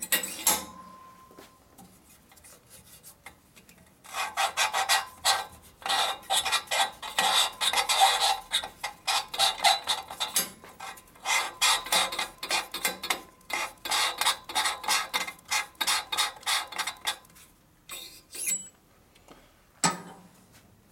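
Rapid, repeated metal-on-metal rasping in the valve seat of a Harley shovelhead cylinder head, as a valve is twisted back and forth against its freshly cut seat to mark the contact band. It starts about four seconds in and stops a few seconds before the end. A single sharp knock follows near the end.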